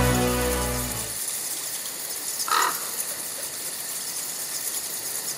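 Background music fading out in the first second, then quiet outdoor ambience with a single short bird call, a crow's caw, about two and a half seconds in.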